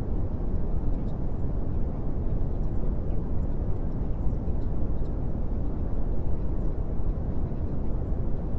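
Steady low rumbling noise, even and unchanging with no distinct events, the masking sound bed of a subliminal audio track.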